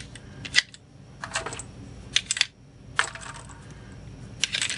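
Brass .223/5.56 rifle cartridges clinking against each other as they are picked from a loose pile and loaded one by one into a plastic magazine-loader tube, in short clusters of metallic clicks about once a second.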